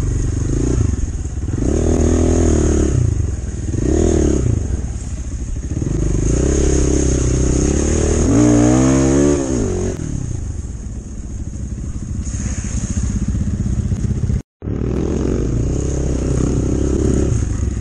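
Enduro dirt bike engines running and revving, swelling and easing off repeatedly, with one strong rev rising and falling about halfway through. The sound cuts out for a moment near the end.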